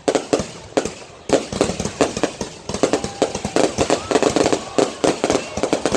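Fireworks and firecrackers going off in a rapid, crackling string of sharp bangs, sparse at first and thickening into a near-continuous volley after about a second.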